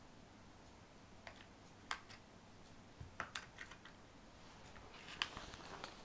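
Irregular light plastic clicks and knocks from a Catit Design Senses Play Circuit ball-track toy as a cat paws at it and its ball knocks in the hard plastic track; the clicks come in small clusters, the sharpest a little after five seconds in.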